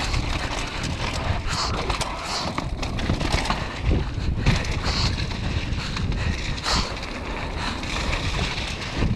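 Mountain bike riding fast down a wet, leaf-covered dirt trail, heard from a camera on the rider: a steady rumble of tyres and wind with frequent rattles and clicks from the bike over bumps.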